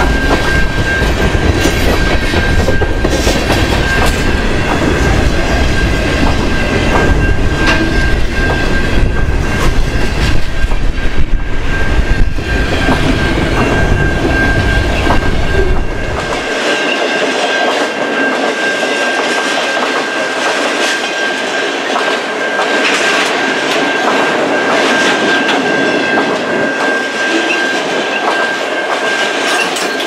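Freight cars, tank cars and autoracks, rolling past at close range: steel wheels rumbling on the rail with frequent clicks over the joints and a thin steady whine. Heavy wind buffeting on the microphone in the first half drops away abruptly about halfway through.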